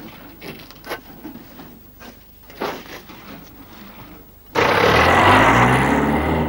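Faint scattered knocks and scrapes of handling. About four and a half seconds in, a car engine cuts in suddenly and loudly, revving with a rising pitch over a rush of noise.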